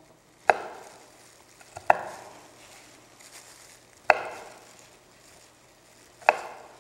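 Knife chopping fresh garlic on a cutting board: four sharp single chops, spaced about a second and a half to two seconds apart.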